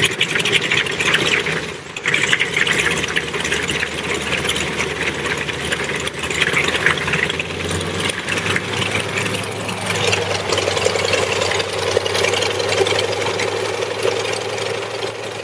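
Yak-18T's nine-cylinder Vedeneyev M-14 radial engine running just after a hand-propped start, its propeller turning. The running evens out into a steadier idle about eight seconds in, and the sound fades away near the end.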